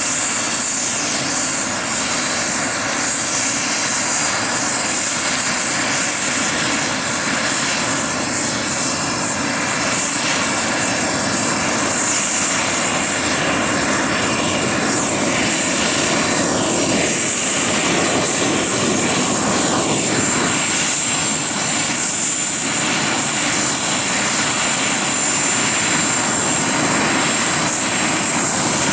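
Radio-controlled scale Hughes 500 model helicopter running on the ground with its rotors turning: a steady mechanical whir with a high whine that slowly climbs in pitch.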